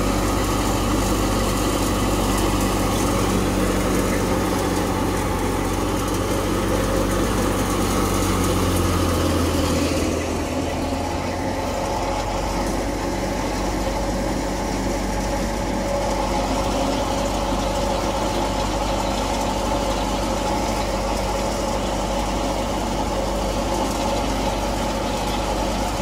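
Wheat threshing machine running steadily with a low engine drone. About ten seconds in the sound changes, thinner and higher, as the drone goes on.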